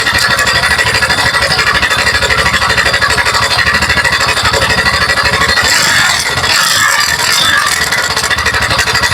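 TVS Ntorq 125 scooter's single-cylinder engine running with a fast, even rattling clatter, a tractor-like sound. The mechanic traces it to a loose cam chain and a loose one-way starter clutch nut.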